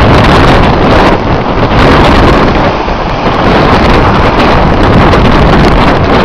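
Strong wind blasting the microphone with loud, steady wind noise, and storm waves surging against a rocky shore beneath it.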